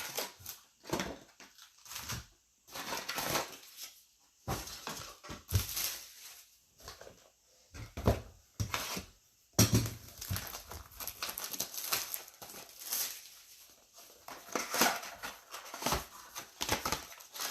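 Sealed basketball trading-card boxes being opened by hand: plastic wrap crinkling and cardboard tearing and rustling in irregular bursts, with a sharp rip or knock about ten seconds in.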